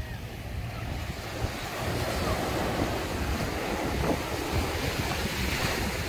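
Small sea waves breaking and washing up the sand, the wash swelling from about two seconds in, with wind rumbling on the microphone.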